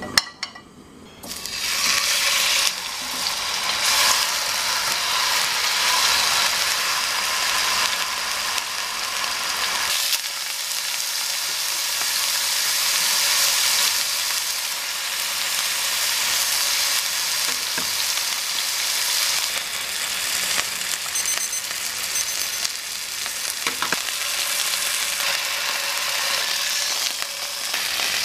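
A thick block of meat sizzling in hot oil in a frying pan. The sizzle starts suddenly about a second in as the meat goes into the oiled pan, then runs on steadily while it sears.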